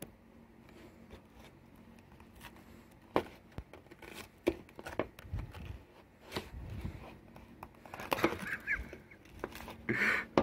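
A metal fork scraping, prodding and cracking at burnt, hardened chocolate in a bowl: irregular clicks, scrapes and crackles, a few of them sharper knocks.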